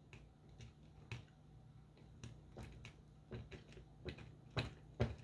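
Faint scattered clicks and taps of small screws and metal spacers being handled and driven into a clear plastic robot chassis, with the two sharpest clicks near the end.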